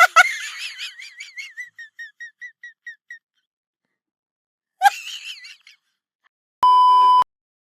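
A high, wavering whistle-like trill, pulsing about five times a second and fading out over about three seconds. After a gap comes a brief sound, then a single steady electronic beep lasting about half a second.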